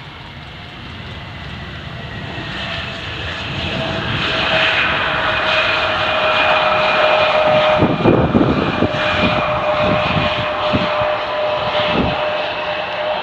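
Boeing 747-400F's four jet engines growing steadily louder as the aircraft passes close, a steady whine over a rushing noise, with a faint falling tone. From about eight seconds in, a ragged low rumble comes in surges.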